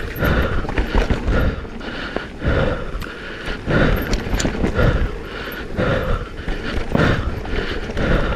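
Downhill mountain bike descending a rough trail: tyres running over dirt and rocks, and the carbon frame and chain rattling and knocking, in irregular surges.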